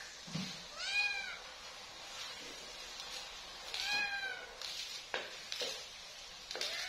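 An animal crying three times, each short cry rising and then falling in pitch, about three seconds apart, with a few light knocks in between.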